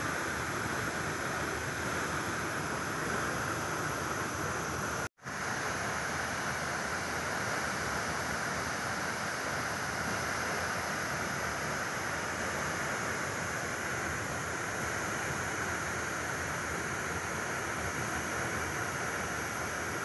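Steady rush of a waterfall pouring into a plunge pool. The sound cuts out for a split second about five seconds in.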